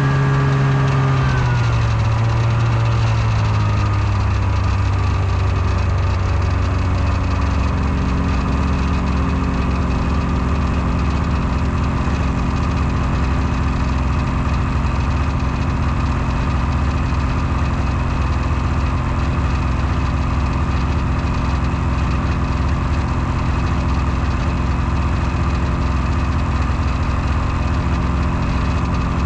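Snowmobile engine coming off speed, its pitch falling over the first several seconds, then idling steadily while the machine sits stopped.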